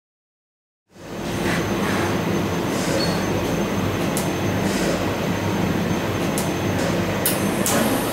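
Steady industrial machine noise in a sheet-metal welding shop, with a low hum and a few short, sharp hisses. It starts abruptly about a second in.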